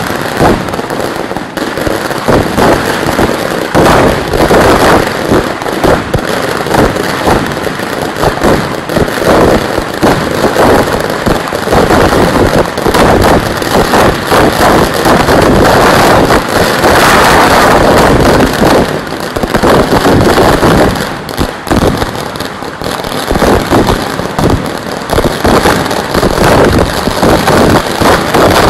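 Ground-level firecracker barrage going off in a rapid, unbroken stream of cracks and bangs. It eases briefly a little past two-thirds of the way through, then picks up again.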